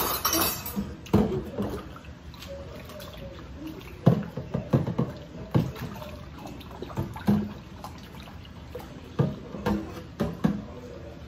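Dishes being washed by hand at a kitchen sink: water running and dripping, with irregular clinks and knocks of utensils and dishes.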